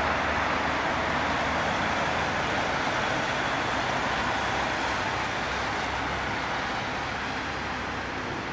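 Boeing 767-300 airliner's jet engines on landing approach: a steady rushing noise that slowly fades as the aircraft moves away.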